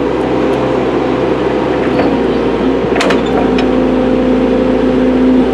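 Excavator's diesel engine working hard under load with a steady whine, broken by a few sharp knocks, the loudest about three seconds in, as the bucket teeth bite into hard lamproite ore.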